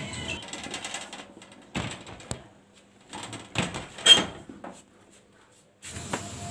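A few scattered light knocks and clicks of things being handled, with faint room tone between them.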